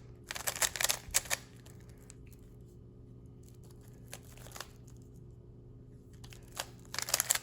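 A plastic 3x3 speed cube being twisted by hand: quick runs of clicking and clacking from the turning layers, a cluster in the first second, a few single clicks in the middle and another cluster near the end. A low steady hum runs underneath.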